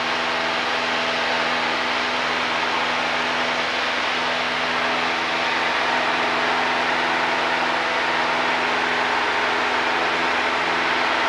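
Single-engine Cessna's piston engine and propeller running steadily at level cruise, a constant drone under a loud rush of airflow, heard inside the cabin.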